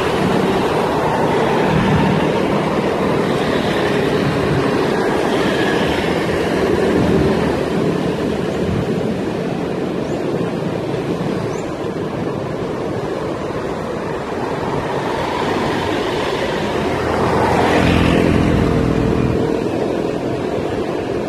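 Street traffic noise heard while riding along a road: a steady rush of motorcycle and car engines and tyres. A louder vehicle engine passes close by near the end.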